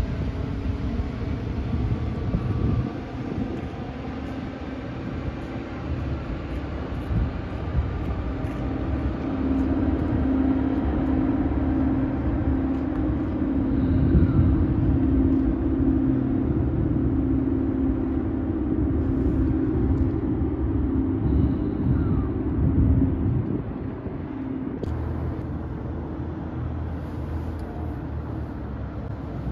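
A motor cruiser's engine drones steadily as the boat speeds along the river. The drone is strongest from about nine seconds in and fades a little after about twenty-four seconds, over a low wind rumble on the microphone.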